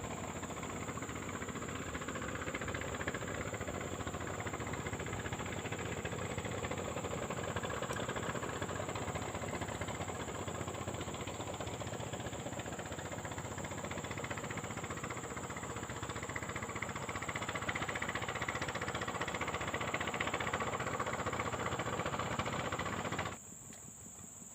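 A motor engine running steadily, heard as a dense mechanical noise, with a steady high insect drone over it. The engine noise cuts off suddenly near the end, leaving the insect drone.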